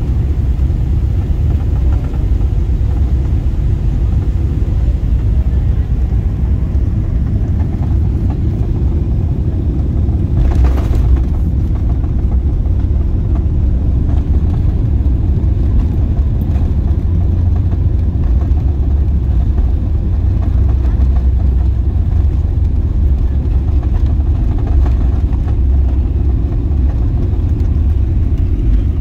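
Steady low rumble of cabin noise inside a Boeing 777-300ER airliner, with a brief hiss about eleven seconds in.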